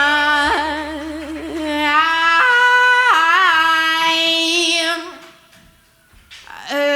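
A singer holding long wordless notes with vibrato, unaccompanied, stepping between pitches. The voice stops about five seconds in and comes back near the end.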